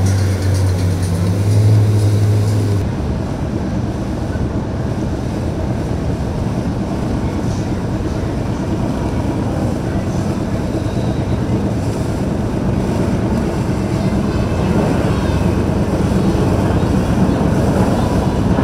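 Background music with a heavy bass that cuts off about three seconds in, followed by the steady rumble of a motorboat's engine and its churning wake as the boat runs past.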